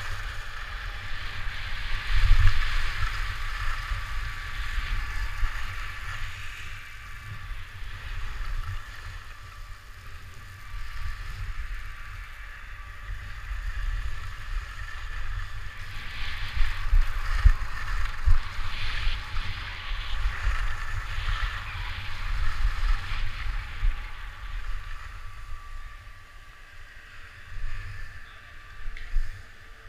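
Skis sliding and scraping over packed snow on a downhill run, with wind buffeting the microphone in a low rumble. The scraping hiss swells around the middle and fades near the end as the skier slows.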